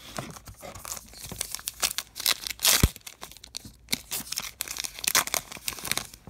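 A 2019 Topps Archives baseball card pack's wrapper being torn open and crinkled by hand, in a dense run of crackles, with a single dull thump about three seconds in.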